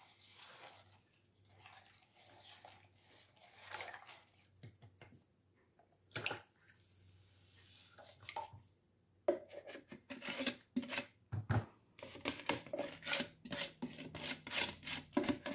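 Lye water poured from a plastic tub into a bucket of used cooking oil, a soft trickling at first. About nine seconds in, rapid repeated scraping and rubbing strokes against the plastic tub start as the last of the lye water is scraped out.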